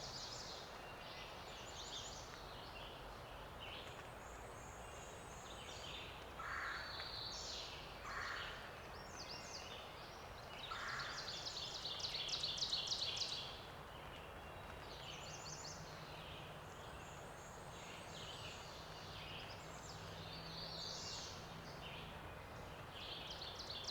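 Songbirds calling and singing in a spring woodland chorus: many short high-pitched phrases, with a louder rapid trill about halfway through.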